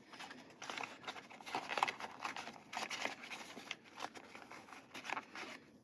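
Faint, irregular rustling and light clicks of small objects being handled: a belt buckle and its box being turned over and moved about.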